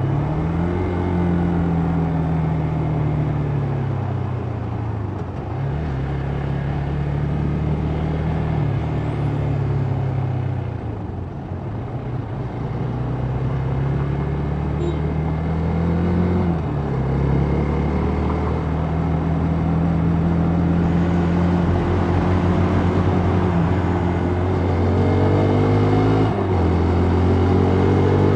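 A vehicle engine accelerating repeatedly: its pitch climbs and then drops sharply at each gear change, about five times, over a steady rushing noise of wind and road.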